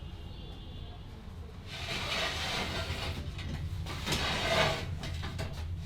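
Hands rubbing and kneading a scalp and hair in a head massage: soft rustling friction sounds that start about a second and a half in and come in two main stretches, over a steady low background rumble.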